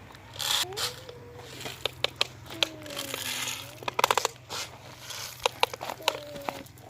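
Plastic toy excavator and trucks being handled, giving many sharp clicks and knocks mixed with short crinkling, scraping rustles.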